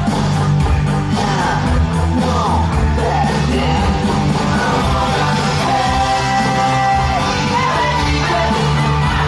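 Rock song playing with singing over a steady beat and bass.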